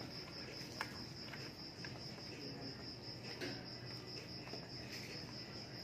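Crickets chirping in a steady, high, evenly pulsing trill, with a few faint clicks.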